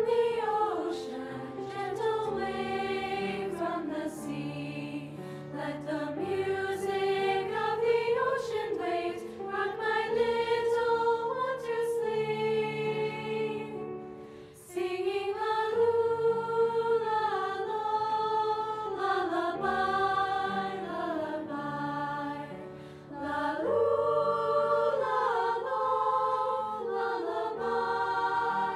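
High school choir singing in harmony, several voice parts moving together over held low notes, with two short breaths between phrases partway through.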